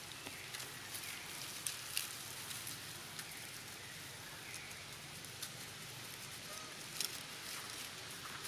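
Outdoor ambience: a steady hiss with scattered light crackles and clicks throughout.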